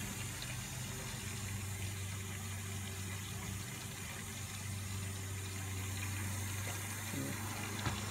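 City-fed water running from the faucet into a stainless steel sink as an even hiss, with a steady low hum underneath.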